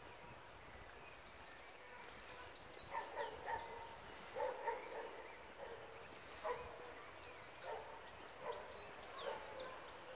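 A run of short animal calls, starting about three seconds in, some coming in quick clusters and others spaced a second or so apart.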